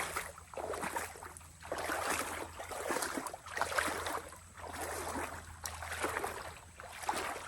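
A person wading through knee-deep creek water, the legs sloshing and swishing through it with each stride, about one surge of water noise a second.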